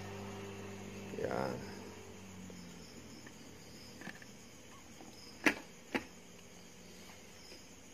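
Three sharp plastic clicks from the Spyder Spike 2 full-face helmet's visor lock being worked by hand, the loudest about five and a half seconds in, over faint chirping of crickets.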